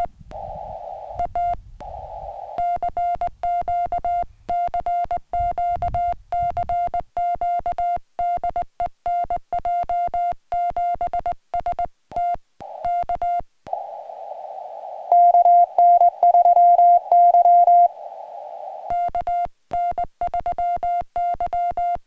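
Morse code (CW) beeps from a portable ham radio transceiver: one steady mid-pitched tone keyed on and off in quick dits and dahs as a TinyPaddle key is worked. There are stretches of receiver hiss around the tone, and a few low handling bumps in the first seven seconds.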